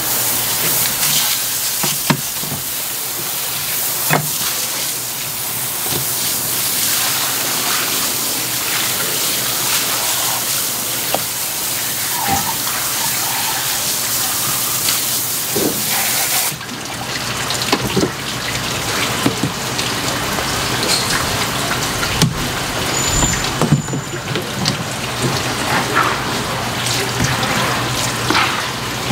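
Water running from a hose onto squid on a plastic cutting board, a steady rushing hiss that cuts off about halfway through. After that come scattered light knocks and clatter of knives on the cutting board.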